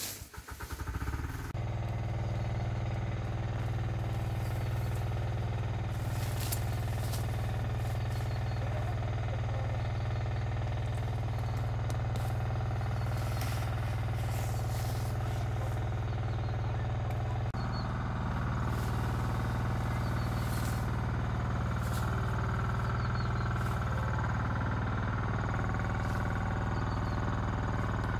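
A small engine starts with a quick run of firing pulses about a second in, then runs steadily at an even speed. Its note shifts slightly about two-thirds of the way through.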